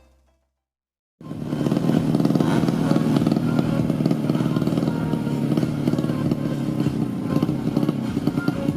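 Tuned 130cc underbone (bebek) drag motorcycle engines running loudly and steadily, starting about a second in after a moment of silence, with a rapid, rough exhaust pulse.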